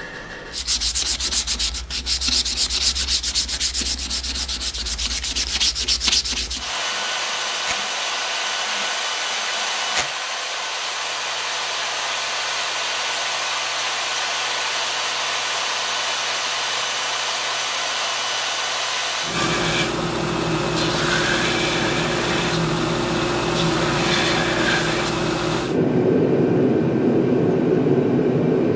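Power-tool shop work: for about six seconds a tool shaping the glued-together razor scales, then a bandsaw cutting a small brass wedge held in locking pliers, with a long steady cut followed by shorter changing passes near the end.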